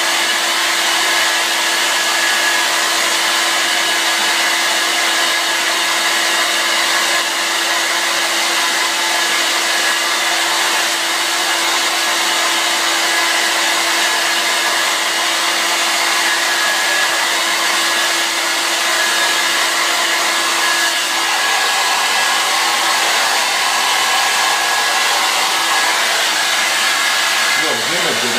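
Handheld hair dryer running steadily while drying hair: a constant rush of blown air with a steady hum.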